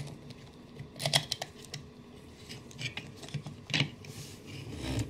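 Light plastic clicks and knocks, about five, spaced irregularly, from a hard plastic action figure and its rebuild-table playset being handled as the table is swung upright on its pivots.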